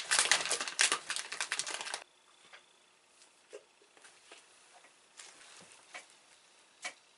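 Plastic snack packet crinkling and rustling loudly for about two seconds, stopping suddenly, followed by a few faint clicks and rustles.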